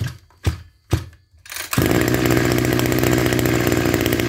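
Maruyama MKF330 33cc two-stroke brush cutter engine being pull-started: three quick pulls of the recoil starter cord, then the engine catches about a second and a half in and runs steadily. Primed and choked beforehand, it starts easily.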